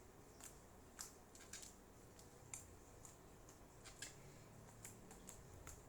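Faint, irregular sticky clicks and crackles of homemade clay slime being squeezed and stretched in the hands. The slime is still slightly sticky.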